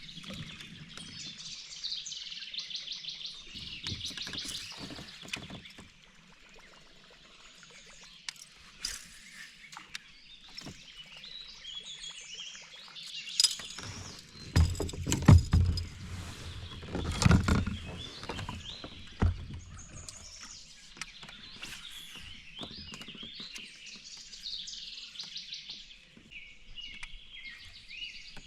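Birds chirping and singing throughout, many short calls and trills, with a cluster of low thumps and knocks about halfway through that is the loudest part.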